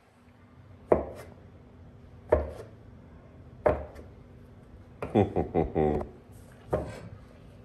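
Kitchen knife cutting rolled egg pasta dough into strips, knocking on the counter beneath: single sharp chops about every second and a half, with a quick run of several cuts a little past the middle.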